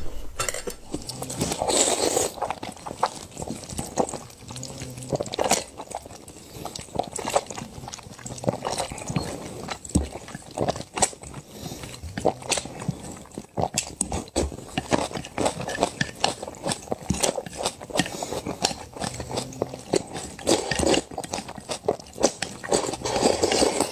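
Noodles being slurped and chewed close to the microphone: a quick, irregular run of wet smacking clicks with a few longer slurps.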